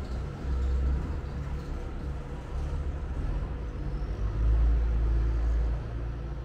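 Low, uneven rumble of street traffic, swelling louder for a second or two a little past the middle.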